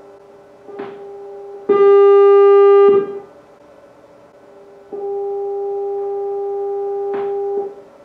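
The 400 Hz audio tone of an AM-modulated microwave signal, picked up through a microwave resonance chamber while the signal generator sweeps upward in frequency. The steady tone swells loud twice: sharply and harsh for about a second starting near two seconds in, then more evenly for over two seconds from about five seconds in. Each swell marks a resonant frequency of the chamber, around 3270 and 3518 MHz. A faint click comes before each swell.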